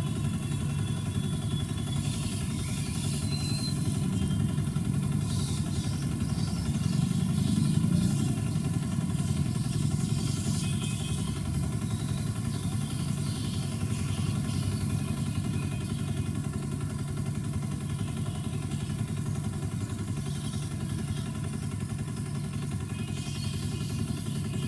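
A steady low engine-like rumble that swells slightly about eight seconds in.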